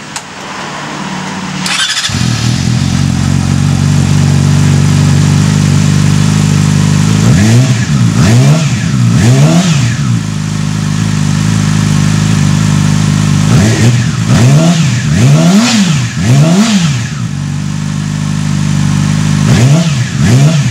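2012 Yamaha R6 inline-four engine, running through a freshly fitted Graves slip-on exhaust, starts about two seconds in and idles steadily. Three clusters of quick throttle blips follow, each rev rising and falling fast: a few around eight to ten seconds in, several around fourteen to seventeen seconds, and two near the end.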